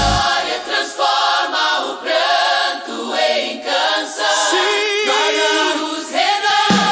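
Gospel choir singing with the drums and bass dropped out, the voices almost alone in a sustained a cappella passage. Near the end the bass and drums come back in.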